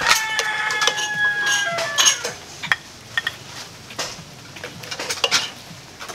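A rooster crows once, a pitched call of about two seconds at the start, trailing slightly downward at the end. A metal ladle clinks several times against the stockpot and bowl as broth is ladled out.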